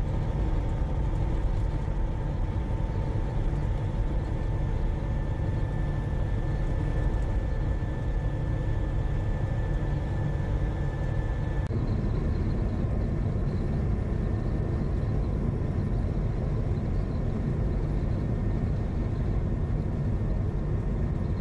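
Semi-truck's diesel engine and tyre noise heard from inside the cab while cruising at highway speed, a steady low rumble. A faint high whine runs with it and stops about halfway through.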